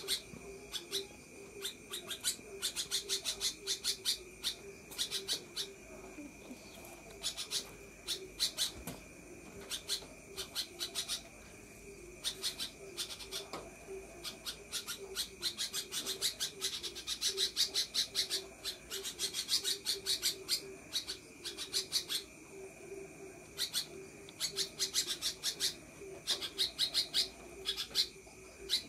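Caged sooty-headed bulbul (kutilang) singing a long, rapid chattering 'ngekek' in the fast 'konslet' style: runs of quick, sharp high notes, several a second, broken by short pauses.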